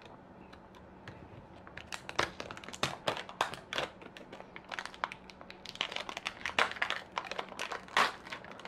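Plastic wrapping of a blind-box toy crinkling as it is unwrapped by hand. It is quiet for about the first two seconds, then comes in irregular crackles that grow denser toward the end.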